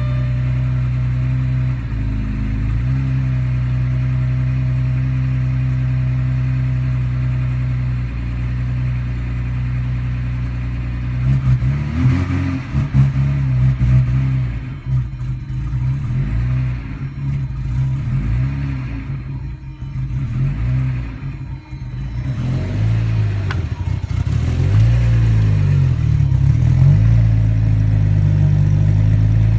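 1999 Audi A4 Quattro engine idling, then, partway through, given throttle in uneven blips during which it stumbles and sags, before settling back to idle. The stumbling on throttle is the hard hesitation the car has when throttle is applied.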